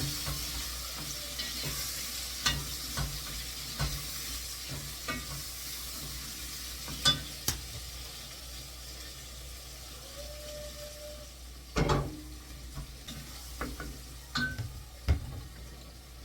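Food frying and sizzling in a pan while being stirred, with scattered sharp knocks of a spoon against the pan, the loudest about seven and twelve seconds in. The sizzle slowly dies down.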